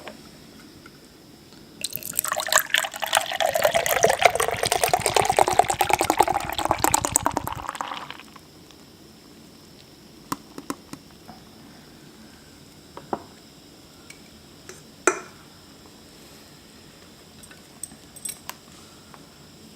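A fizzy drink being poured into a glass for about six seconds, with a dense crackle of bubbles over the pour, then a few light clicks and taps.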